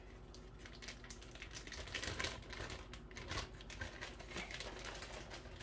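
Faint crinkling and scattered light clicks of a thin plastic dish soap bottle being handled and squeezed in the hand.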